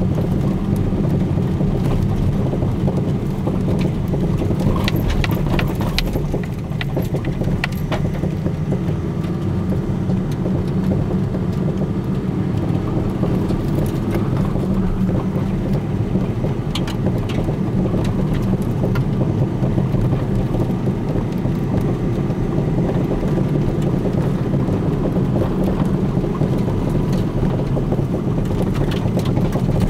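Steady road noise of a car driving, with sharp knocks and clicks from time to time, clustered about five to eight seconds in and again around the middle. They are the abnormal noise from newly fitted front coilover suspension.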